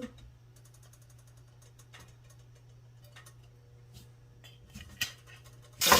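Faint, scattered ticks over a low steady hum while a pan heats with oil. Near the end a sharp clatter, then loud sizzling as food goes into the hot oil.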